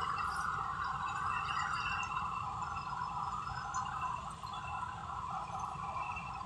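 Combine harvester running in a paddy field, a steady droning hum with low rumbling noise underneath.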